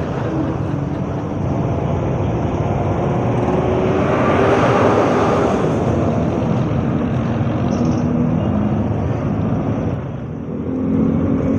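Riding noise picked up by a helmet-mounted DIY microphone on a moving motorcycle: wind rushing over the mic, with engine and traffic noise beneath. The noise swells to its loudest about halfway through.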